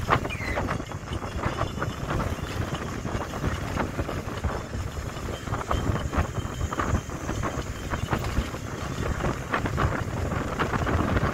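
Wind rushing over a phone microphone held out of the window of a moving bus, over the bus's engine and road noise. Frequent short clatters run through it.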